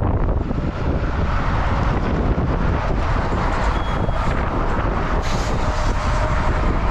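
Gusty wind buffeting an outdoor microphone, a continuous uneven rumble, with passing road traffic.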